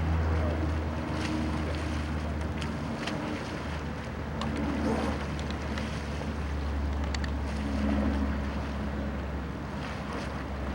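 Wind buffeting the microphone over open water, a steady low rumble with the wash of small waves. Scattered small clicks and splashes sound through it.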